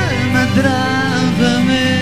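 Rock band music playing, with a lead melody gliding between held notes over steady accompaniment.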